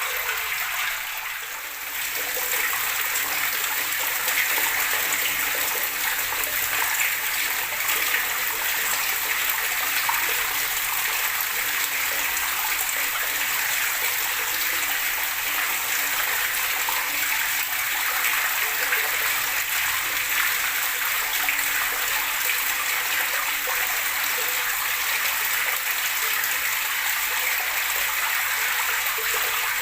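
Running water gurgling and splashing in a steady, continuous rush, briefly a little quieter at the start.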